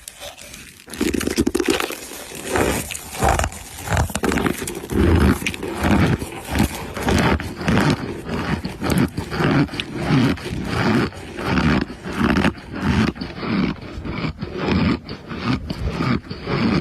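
Close-miked chewing of compressed cornstarch chunks: a steady run of crisp, crumbly crunches a few times a second, starting after a brief lull at the very beginning.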